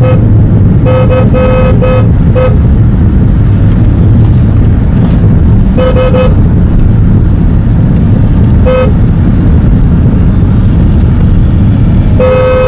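Steady engine and road rumble inside a moving car, with short horn beeps over it: several quick toots about a second in, a pair around six seconds, a single one near nine seconds and a longer beep near the end.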